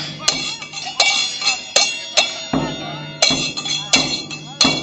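Murga bass drum (bombo con platillo) played in a beat, with mallet strikes on the drumhead and stick hits on the cymbal mounted on top, about two strikes a second, the cymbal ringing between hits.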